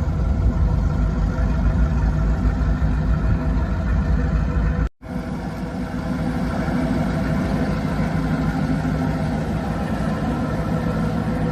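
Boat engine running steadily with a heavy low rumble. It breaks off for an instant about five seconds in, then carries on a little quieter.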